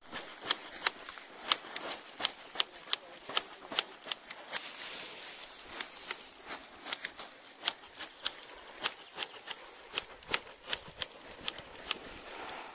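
Tea-picking shears snipping through tea bushes in a steady run of sharp clicks, about two to three a second, over a light rustle of leaves.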